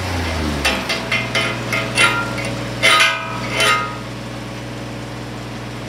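Several sharp metallic clinks and taps on steel weld test plates, the louder strikes leaving a brief ring. After about four seconds the clinks stop and a steady low machine hum carries on alone.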